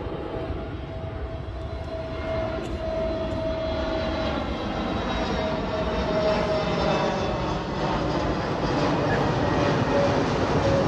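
Jet airliner's engines on approach for landing, a steady rumble with a whine that slowly falls in pitch as it grows louder.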